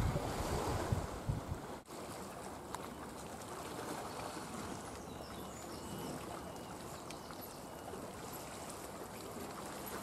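Wind buffeting the microphone in loud low gusts for the first couple of seconds, then a steady rushing hiss of wind over the sea, with a few faint short high-pitched sounds around the middle.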